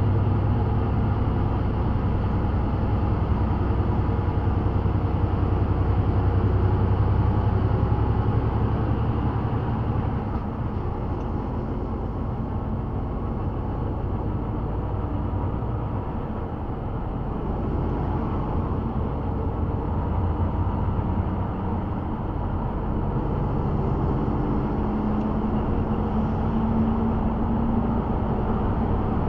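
Engine drone and road noise of a vehicle driving at speed, heard from inside the cab. The low engine note eases about ten seconds in, and a steady higher hum comes in near the end.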